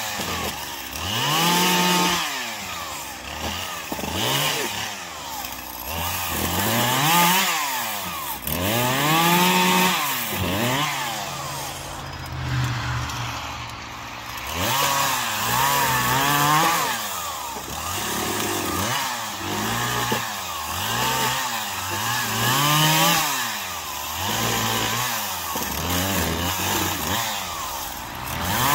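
Poulan Pro 5020 two-stroke chainsaw cutting pine branches, its engine revving up and falling back over and over, about every two seconds, with a steadier lower run near the middle.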